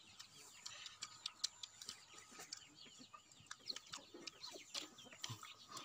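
Faint rustling and scattered small clicks, with faint bird calls in the background.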